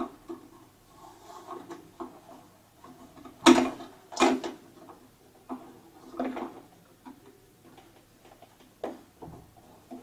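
Handling noise of a wet-and-dry vacuum's plastic motor head as a polyurethane foam filter is fitted onto its filter cage: light rubbing and small clicks, with two sharp plastic knocks about three and a half and four seconds in and a few softer knocks later.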